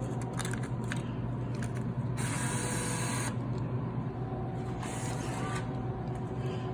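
Vending machine bill acceptor whirring as its motor works a dollar bill, for about a second starting about two seconds in, then more briefly again near the five-second mark, over the machine's steady hum.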